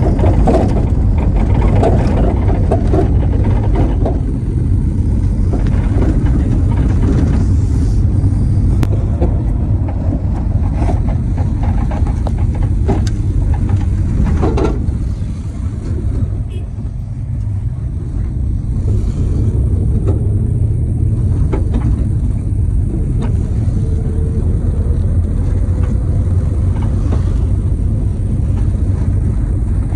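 Steady low rumble of a moving road vehicle's engine and tyres, heard from inside the vehicle, with occasional knocks and rattles.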